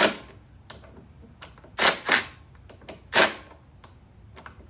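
Ratchet wrench tightening the carburetor mounting bolts on a push mower engine: four separate sharp clicks, two of them close together near the middle.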